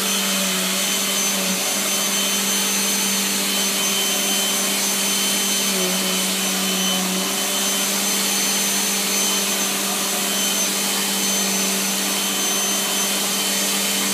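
Vacuum cleaner running steadily: an even rush of air with a constant motor hum and a high fan whine.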